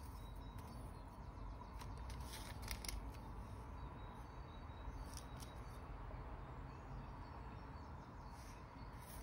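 Faint handling of paper and craft tools: a few soft clicks and rustles, spread out, over a low steady room hum.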